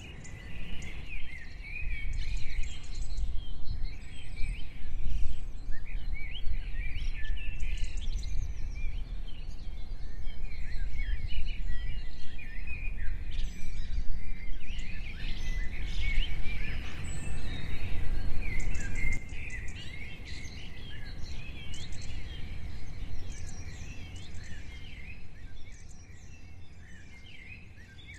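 Several birds chirping and singing, over a low, gusting rumble of wind noise on the microphone that eases off near the end.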